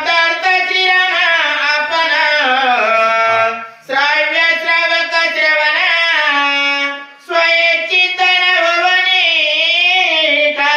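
A man singing an ovi verse of Marathi devotional scripture in a slow, drawn-out, ornamented melody. It comes in three long phrases, with short breaks about four and seven seconds in.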